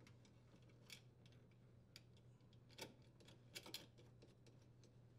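Near silence with a low steady hum and a few faint clicks as wires and the strain relief are handled at the dishwasher's metal junction box: one about a second in, one near the three-second mark and a quick pair shortly after.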